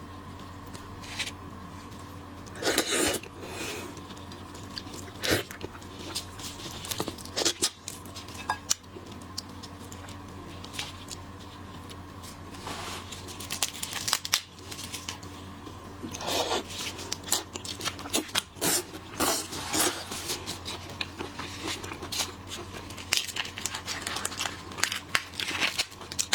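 Close-miked peeling and eating of large shrimp: irregular crackles and tearing of the shells, with crunching and chewing in between.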